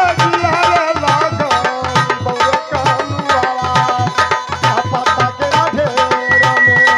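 Live folk-theatre accompaniment: a dholak barrel hand drum played in a fast, steady rhythm, under a wavering melody line.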